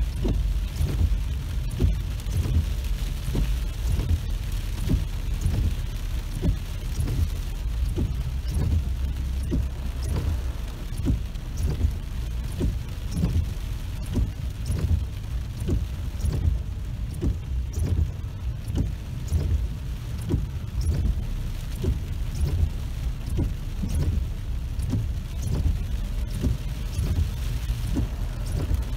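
Heavy rain striking a car's roof and windshield, heard from inside the cabin as many irregular drop hits a second over a steady low rumble.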